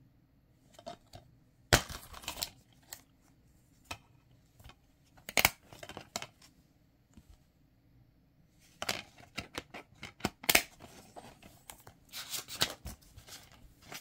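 Plastic DVD case being opened and handled, the disc taken off its hub and a paper insert pulled out: a series of sharp plastic clicks and short rustles, the loudest click about two seconds in and a busy stretch of clicking and rustling near the end.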